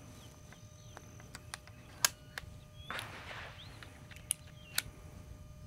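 Small scattered clicks and light handling noise as an Umarex Notos air rifle is loaded, the sharpest click about two seconds in and a brief swish near three seconds. Faint bird chirps are heard in the background.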